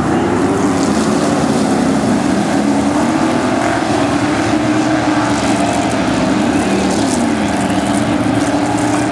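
Engines of several dirt-track stock cars racing, their pitch rising and falling as they lift off and accelerate through the turns, with one clear dip and climb about seven seconds in.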